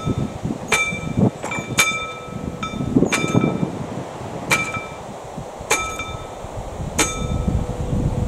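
Classic mechanical level-crossing bell of AŽD PZM-1 barriers ringing in single metallic strokes, roughly once a second at uneven spacing, each stroke leaving a bright ringing tone. This is the crossing's warning bell. Wind rumbles on the microphone underneath, and a faint steady hum comes in near the end.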